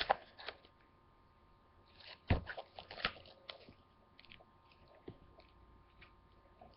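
Faint scattered clicks, knocks and rustles of hands handling things while searching, busiest between about two and three and a half seconds in.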